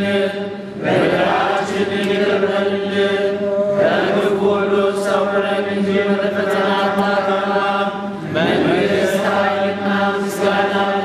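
Congregation chanting together in long, held notes, with a new phrase beginning a few times.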